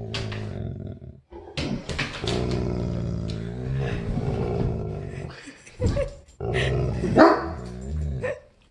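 Poodle growling long and low in displeasure, broken by a few sharp barks, the loudest about seven seconds in.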